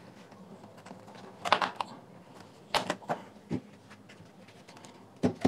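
Plastic clips of a JBL Flip 3's fabric-covered grille snapping loose as it is pried off the speaker body. A cluster of sharp clicks comes about one and a half seconds in, more around three seconds, and a single one near the end.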